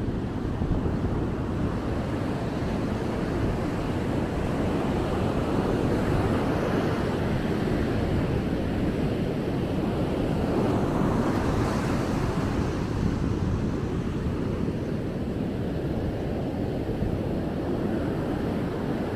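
Ocean surf washing onto the beach: a steady rushing noise that swells a couple of times, with wind rumbling on the microphone.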